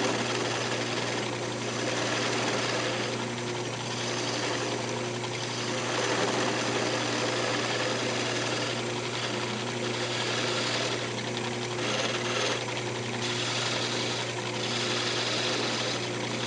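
Wood lathe running with a steady motor hum while a small hand-held turning tool cuts a wooden keychain blank spinning on a pen mandrel. The scraping hiss of the cut swells and fades with each pass of the tool.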